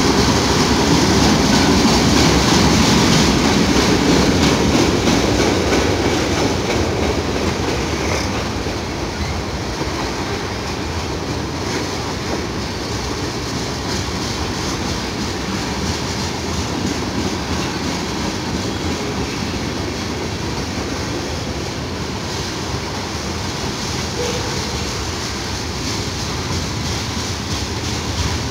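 Freight cars of a Norfolk Southern mixed freight train rolling past, their steel wheels rumbling on the rails. The sound is a little louder for the first six seconds, then steady.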